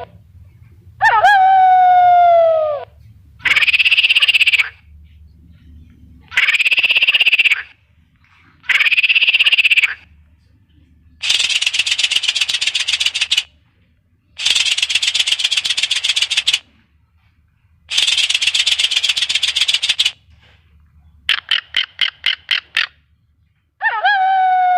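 A series of separate animal calls, each lasting one to two seconds with short silent gaps between them, including croaking frogs. A falling, pitched call comes about a second in and again near the end. Three harsh shorter calls follow it. In the middle come three longer rasping croaks made of rapid pulses, and then a quick train of short pulses.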